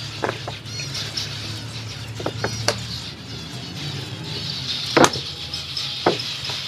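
Small aviary finches chirping continuously, a busy chatter of many short high calls. Scattered plastic clicks and knocks from a pump-spray head being fitted to a plastic bottle and the bottle being shaken, the loudest a sharp knock about five seconds in.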